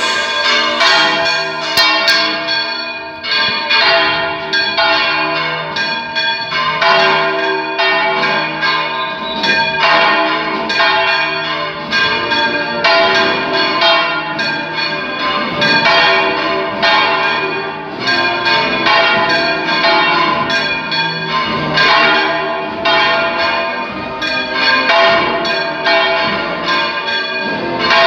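Three church bells swung full circle together in a Valencian-style volteo: a small 81 kg bell in G cast in 1662, and 244 kg and 927 kg bells in C and F cast in 1954. Their strikes come quickly and unevenly and overlap into one continuous clangour of ringing tones.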